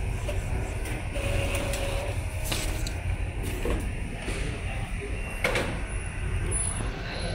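Epson L3250 ink-tank printer printing and feeding out a page: steady low mechanical running with a few sharp clicks from the paper feed and print carriage.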